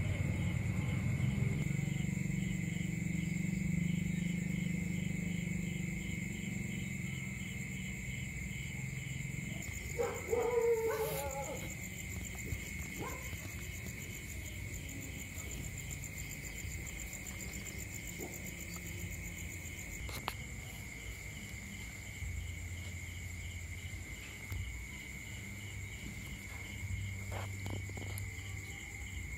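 Night insects chirping steadily, a high pulsing trill about three times a second over a continuous high whine. A short animal call cuts in about ten seconds in.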